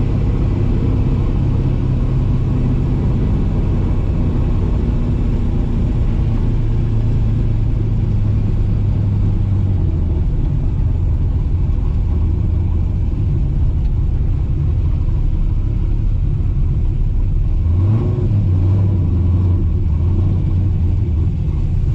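Drag-raced 1968 Pontiac Firebird's engine running steadily at low revs, with a short rise in revs about eighteen seconds in.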